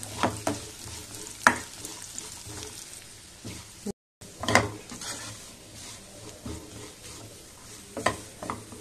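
Sliced ginger frying in shallow oil in a nonstick pan, sizzling steadily while a spatula stirs it, with a few sharp scrapes and knocks of the spatula against the pan. The ginger is being fried until crisp.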